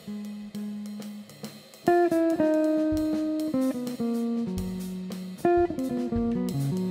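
Hollow-body archtop electric guitar playing: held single notes, then a loud chord about two seconds in, followed by a moving line of notes and chords with low bass notes beneath.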